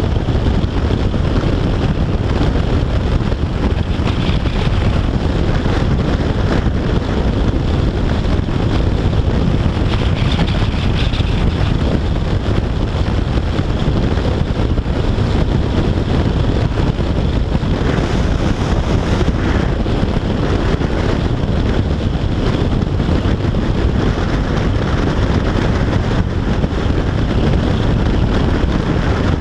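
Steady wind rush buffeting the camera microphone, with road noise underneath, from a Yamaha FJR1300AE touring motorcycle cruising at motorway speed.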